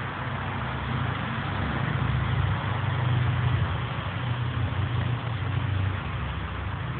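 A motor vehicle's engine running with a steady low hum that grows louder about a second in and eases off again after the middle.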